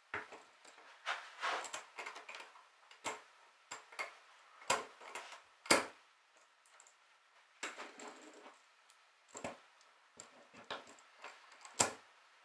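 Metal parts of a sailboat winch clicking and clinking as they are fitted together by hand, with the roller bearing cage worked onto the centre stem. The clicks come irregularly, the sharpest about halfway through and again near the end.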